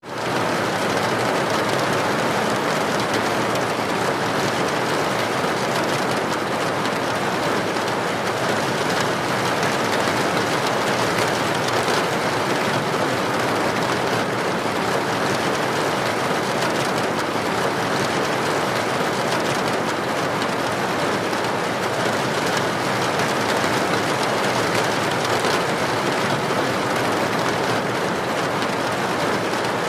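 Steady soft rain: an even hiss of many raindrops, with no thunder or music. It fades in at the very start.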